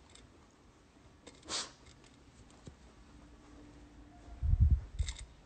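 Quiet room tone on a phone's microphone, broken by a short breathy rush about a second and a half in and a few loud, low, muffled bumps near the end, typical of a hand-held phone being handled.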